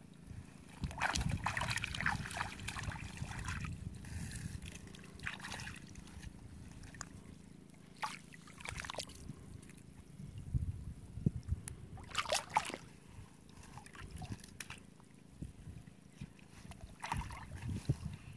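Water sloshing and splashing in irregular bursts, with trickling between them. The bursts are strongest a second or so in and come again several times.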